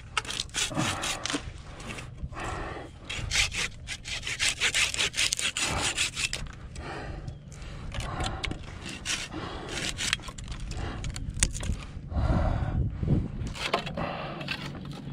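Hand pruning saw cutting through an ash branch in quick back-and-forth strokes, in several runs with short pauses between them.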